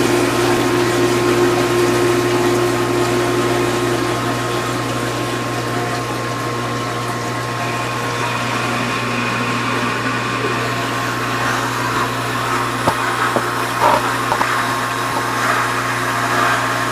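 Vintage KitchenAid Supurba KDS-18 dishwasher running its pre-wash: a steady motor and pump hum under the hiss of water spraying inside. Two short clicks near the end.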